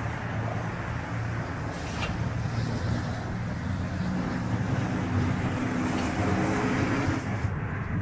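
Airbus A380's four jet engines on landing approach: a steady engine noise with low humming tones that grows louder as the airliner comes closer, then drops off abruptly near the end.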